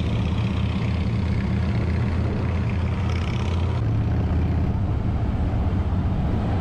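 Motorcycle engine idling steadily at a constant low pitch, played in as a sound effect.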